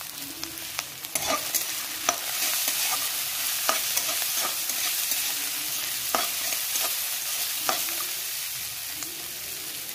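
Chopped vegetables sizzling in oil in a metal kadai as a metal spatula stirs them, with a steady hiss and scattered sharp clicks of the spatula knocking and scraping against the pan.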